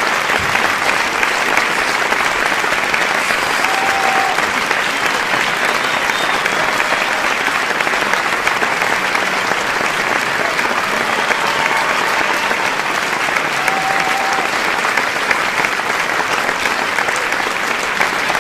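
Large audience applauding steadily and densely, with a few brief calls from the crowd heard over the clapping.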